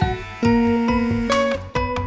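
Background instrumental music, a tune of plucked guitar notes.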